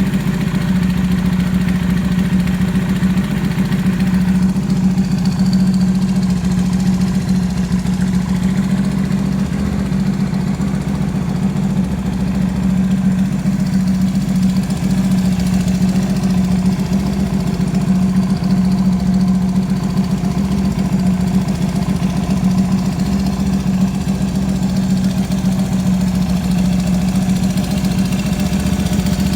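Yamaha Drag Star 250's air-cooled V-twin idling steadily through an aftermarket American Dreams gatling-style muffler. It runs without abnormal noises.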